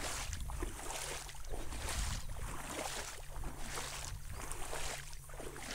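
Young rice plants swishing against the camera and legs in step with someone walking through a flooded rice field, a swish a little more often than once a second, over a steady low hum.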